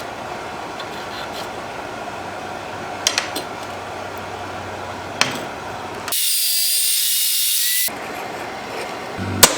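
Shop tool work on steel parts: a steady rubbing, scraping noise with a few sharp clicks, then a loud high-pitched hissing grind for about two seconds past the middle, and a sharp knock near the end.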